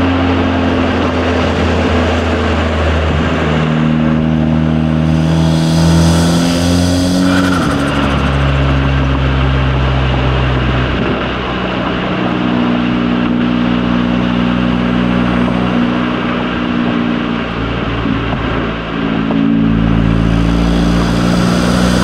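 Turbocharged 2.0-litre four-cylinder of a stage 2 Audi S3 8V with a cold air intake, driving on the road. Its note shifts pitch a few times, louder and brighter with intake noise as it pulls about four to seven seconds in, then drops suddenly about seven and a half seconds in.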